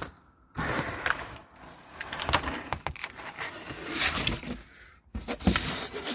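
Corrugated cardboard box flaps and packing being handled: rustling and scraping with several sharp knocks, starting about half a second in.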